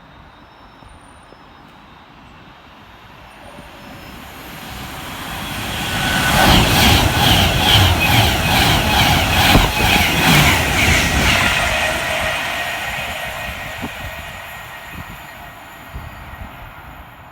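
A passenger train passes through the station at speed without stopping. It grows louder, runs past with a rapid rhythmic clatter of wheels for several seconds, then fades away.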